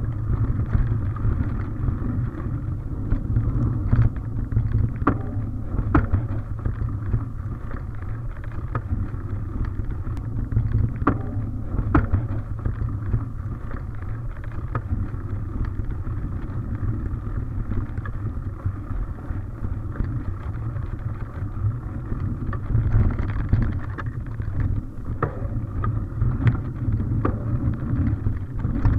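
Mountain bike riding along a dirt forest singletrack, heard from a camera carried on the bike or rider: a steady low rumble of tyres on the trail and wind on the microphone, with frequent sharp knocks and rattles as the bike goes over bumps.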